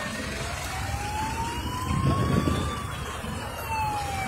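Emergency vehicle siren wailing, its pitch sliding slowly up and then back down, over a low rumble.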